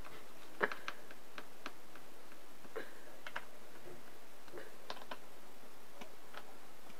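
Small screwdriver driving the screws of an HP Envy 4 laptop's bottom cover: irregular light clicks and ticks of the driver and the case, the loudest about half a second in.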